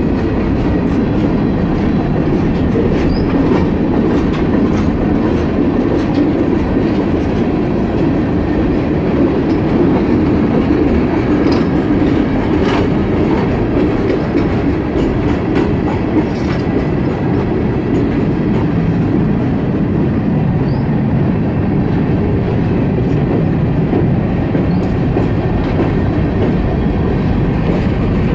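Freight train's covered hoppers and tank cars rolling past close by: a steady loud rumble of steel wheels on rail, with clattering knocks and a few short high wheel squeals.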